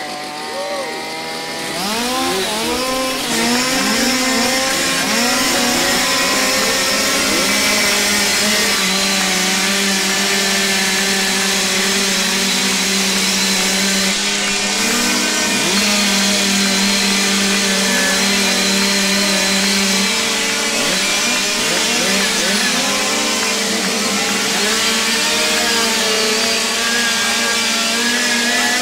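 Several two-stroke chainsaws running together: in the first few seconds they are revved up and down, then they hold steady at different speeds, their engine tones overlapping.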